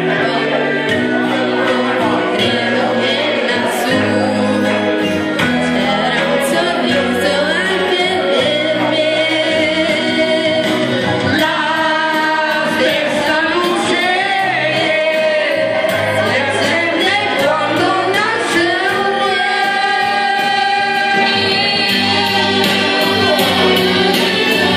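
A man singing an Italian song into a microphone over instrumental backing music, played through a PA.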